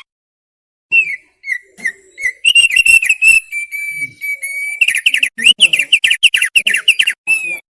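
Thick-billed heleia (opior paruh tebal) singing. Short sliding whistled notes and a few longer held notes at one pitch come first, then a fast run of quick repeated notes over the last few seconds.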